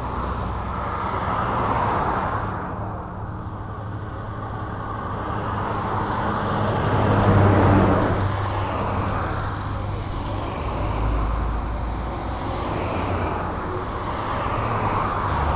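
Road traffic noise beside a busy road, with a steady low engine hum underneath. A vehicle passes and swells loudest about halfway through.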